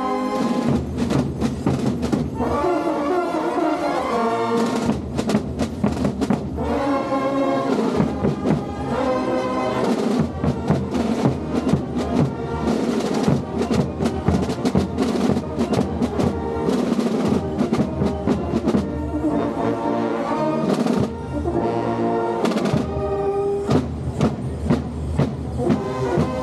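Carnival brass band with tuba and bass drum playing a lively Gilles dance tune, the drums striking a dense, steady beat under the brass.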